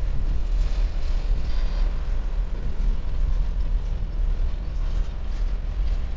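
Freight cars rolling past on the track, a steady rumble of steel wheels on the rails.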